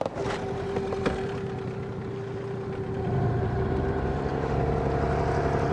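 Boat outboard motor starting abruptly and running at a steady pitch, growing louder about three seconds in.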